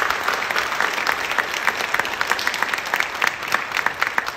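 Congregation applauding: many hands clapping in a dense patter that starts to thin out near the end.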